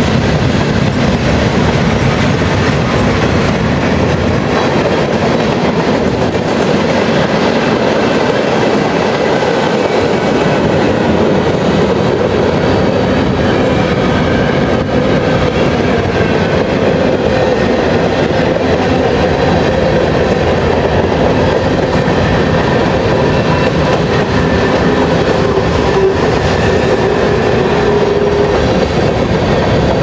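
Freight train cars (boxcars, tank cars and covered hoppers) rolling past: a steady rumble and rattle of steel wheels on the rails, with a faint high tone now and then.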